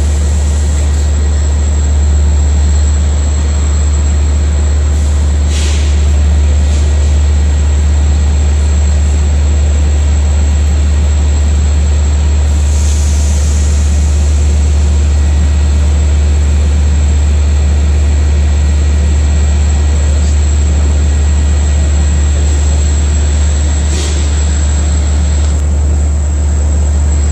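Steady low rumble of a diesel-hauled commuter train approaching from a distance, with a couple of brief hisses.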